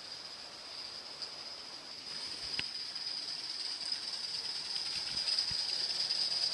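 Steady steam hiss from a Gauge 1 live steam model of a Pennsylvania E6s locomotive, growing louder as it approaches, with a few faint clicks from the track.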